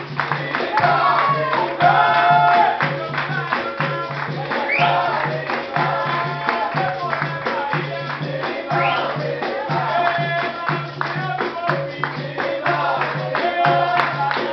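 Capoeira roda music: a group singing together over hand clapping, a tambourine (pandeiro) and a tall hand drum (atabaque). A low note pulses about twice a second under the singing.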